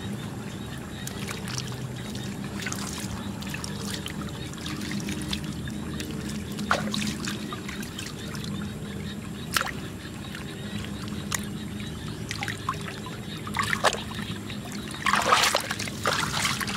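Wet mud being pressed and smoothed by hand beside shallow muddy water, with water trickling and a few separate splashes. Shortly before the end, a louder run of splashing as the muddy water is churned up.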